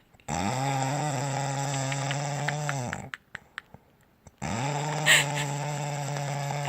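Loud snoring: two long, buzzing snores of about three seconds each with a pause between, steady in pitch and sliding down briefly at each start and end. A short higher-pitched noise cuts in partway through the second snore.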